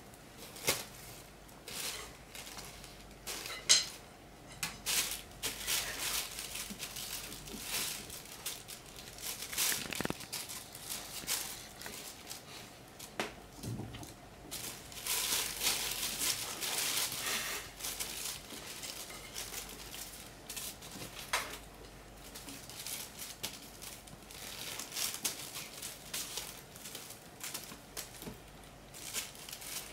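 Thin plastic carrier bag crinkling and rustling in irregular bursts as a kitten paws and steps about on it, with one sharp tap nearly four seconds in.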